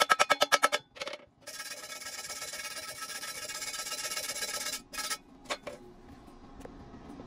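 A hammer taps the thin steel square-pipe weld in a fast, even run of about eight ringing strikes a second, ending just under a second in. Then an angle grinder with a flap disc grinds the weld bead steadily for about three seconds. It stops about five seconds in, followed by a few light clicks.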